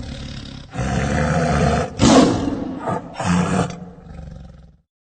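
Tiger roaring in a series of rough roars, the loudest about two seconds in, dying away near the end.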